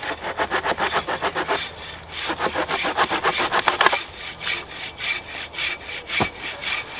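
Hand saw cutting through a log in quick, even back-and-forth strokes, about six a second, pausing briefly twice before the strokes resume.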